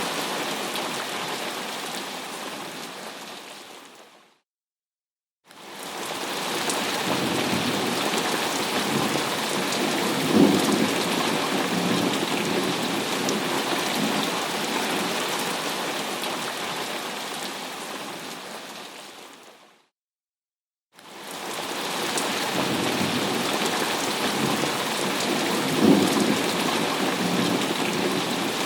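Thunderstorm: steady heavy rain with rumbles of thunder, a louder one about ten seconds in and another near the end. The sound fades out to about a second of silence and back in, twice.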